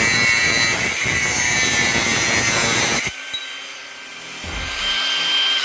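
Ingco 20V cordless angle grinder's cutting disc grinding through a steel 1x1 angle bar with a harsh, loud cutting noise. About three seconds in, the disc breaks through and the grinder runs free with a steady high whine.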